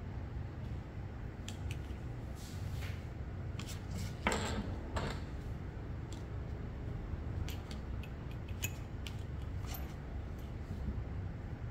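Small parts being handled by hand, with scattered light clicks and ticks and a louder scrape about four seconds in, over a steady low hum.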